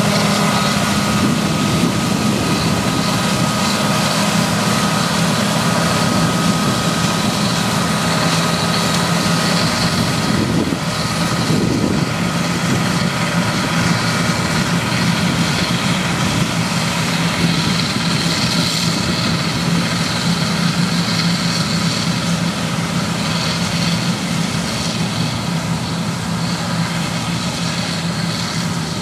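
John Deere combine harvester running steadily while harvesting corn: a low, even engine drone mixed with the noise of the threshing machinery, with a thin steady whine above it.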